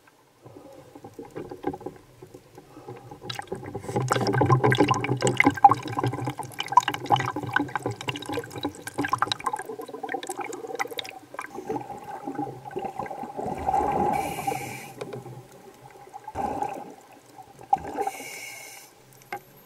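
Water sloshing, splashing and gurgling around a camera at and just under the sea surface, with dense clicks and crackles, then two short bursts of bubbling about 14 and 18 seconds in.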